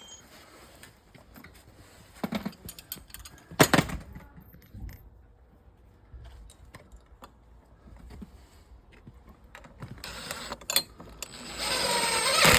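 Small screws and metal gate fittings being handled: scattered clicks and rattles, one sharp knock about four seconds in, and a louder run of rattling and whirring near the end.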